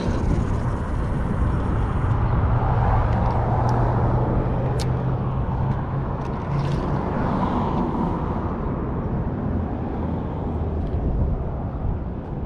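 Road traffic passing over a bridge: a steady rush of vehicles, with one engine's low hum standing out from about two to six seconds in. A few light clicks are heard over it.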